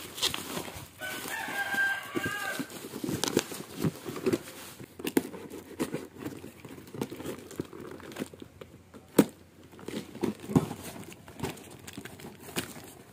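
Plastic bubble-wrap packaging crinkling and a cardboard box being handled and its flaps opened, with scattered clicks and knocks. About a second in, a rooster crows once in the background for a second or two.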